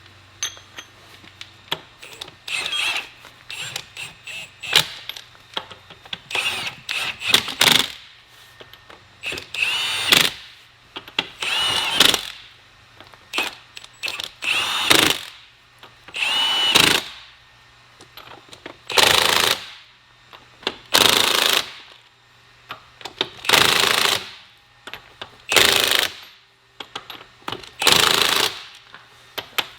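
Cordless impact wrench hammering in about a dozen short bursts, one every two seconds or so, on a wheel loader's lug nuts. It is set to a low power setting and is struggling to take the nuts off.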